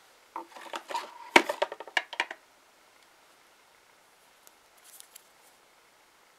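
Glass nail polish bottles being handled: a quick run of clicks and clinks over about two seconds, with one sharp knock in the middle, then a faint rustle near the end.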